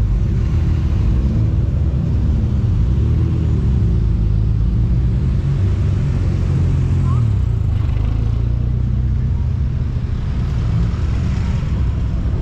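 Engines of modified cars rolling past in a slow queue: a Ford Sierra, a Ford Escort RS Cosworth and a Mk2 VW Golf. They give a deep steady rumble, with the engine note rising and falling as the drivers blip the throttle and pull away.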